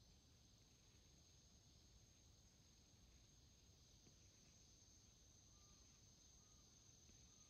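Near silence: quiet room tone with a faint, steady, thin high-pitched whine, and three very faint short tones near the end.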